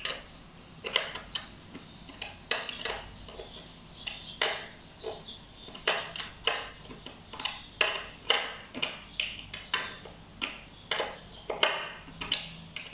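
Open-end 14 mm wrench clinking against the lock nut of a WaterBorne surf-skate adapter as it is tightened a little at a time and repositioned on the nut: repeated short metallic clicks, about one or two a second at irregular spacing.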